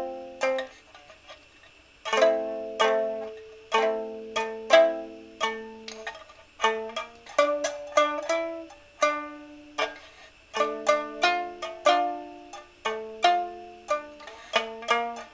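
A solo plucked string instrument being improvised on: plucked chords and single notes that ring and die away, with a short pause about a second in.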